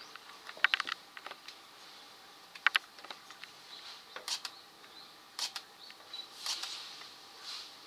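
Camera shutters clicking several times, in short groups of sharp clicks a second or so apart.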